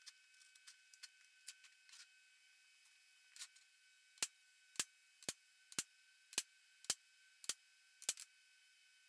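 Hammer striking a center punch on a steel plate, about nine sharp taps roughly two a second, marking hole centres for drilling. A few faint ticks come before the tapping starts about four seconds in.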